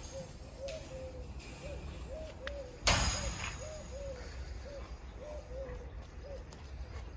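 An animal's short hooting calls, repeating about two to three times a second. A single sharp crack or knock about three seconds in is the loudest sound.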